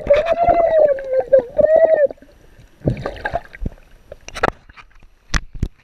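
Seawater sloshing and gurgling around a camera as it dips under the surface, with short knocks and splashes against the housing. For the first two seconds a drawn-out, slightly wavering voice-like note sounds over the water.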